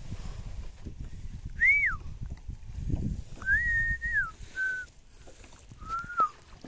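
A series of four clear whistled notes over a low rumbling noise. The first note rises and then falls, a longer level note comes about two seconds in, then a short note, and a falling note near the end.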